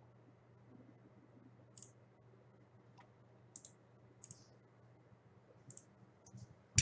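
Faint, widely spaced computer mouse clicks, about five of them, with a louder click near the end, over a steady low hum.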